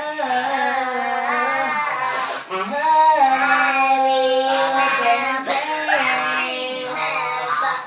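A helium-raised singing voice, a cappella, singing a rock song line, with a long held note in the middle.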